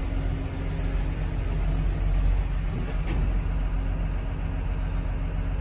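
Loader's diesel engine running steadily, heard from inside the cab while the machine carries a heavy bundle of crushed cars on its forks.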